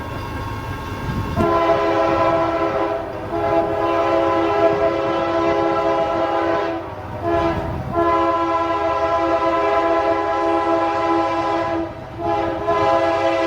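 Locomotive air horn sounding a chord of several steady notes in repeated long blasts, with a short blast between them, over the low rumble of a train.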